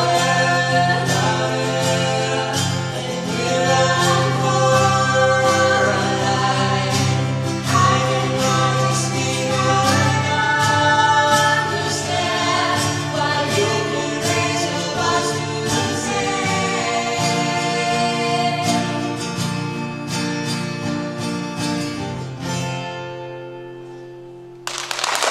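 Two acoustic guitars strummed steadily while a woman and a man sing together; the song ends with the last strums dying away over a couple of seconds, and applause breaks out just before the end.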